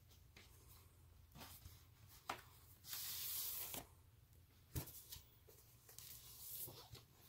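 Faint paper and card handling noise as a vinyl record's printed inserts are moved: a few light taps and a longer swish of paper sliding about three seconds in.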